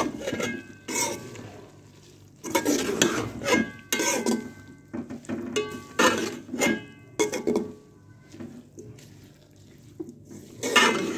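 Slotted metal spoon scraping and knocking against a metal cooking pot as mixed vegetables and fenugreek leaves are stirred and fried, in several bursts with short pauses between; the knocks leave a brief metallic ring.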